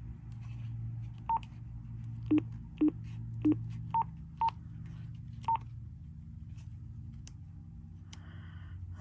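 Motorola XTS 2500 handheld two-way radio giving seven short beeps as it is stepped through channels. Three of the beeps are lower-pitched and four are higher, with a low steady hum underneath that fades out about six seconds in.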